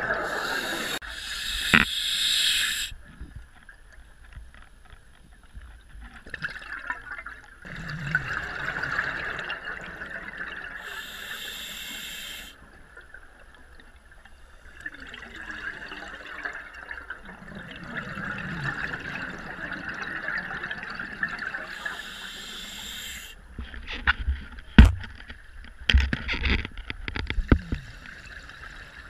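Scuba diver's breathing heard through the camera housing underwater: a hiss and rush of bubbles about every ten seconds, with softer bubbling between breaths. Several sharp knocks and clicks near the end.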